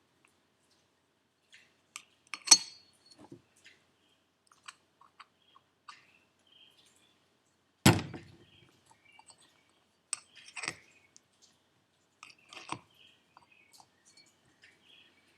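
Small metal parts of an Evo 9 turbocharger clicking and clinking as they are handled and fitted together during a rebuild, with a sharp ringing clink about two and a half seconds in and a heavier knock near the middle.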